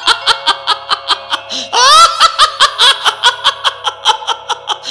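A cartoon ghost (vetala) cackling in fast, even pulses of about six a second, rising in pitch about two seconds in, over background music with held notes.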